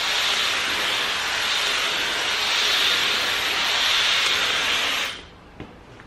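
Dyson hair dryer blowing air steadily with a high rushing hiss, then switched off about five seconds in, the sound cutting out suddenly.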